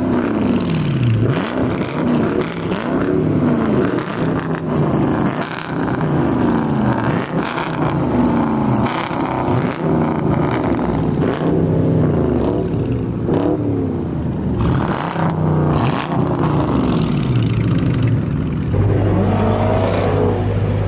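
Muffler-deleted Mopar V8 exhaust, very loud, revved over and over in quick rising and falling blips, settling into a steady idle about two seconds before the end.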